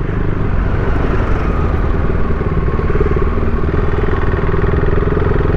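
KTM Duke 390's single-cylinder engine running steadily as the motorcycle is ridden along a street.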